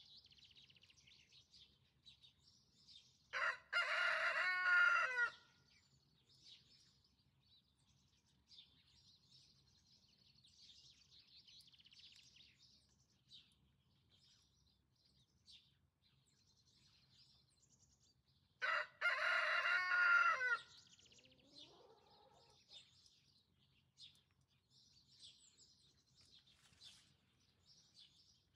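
A rooster crows twice, each crow about two seconds long and some fifteen seconds apart, over faint chirping of small songbirds.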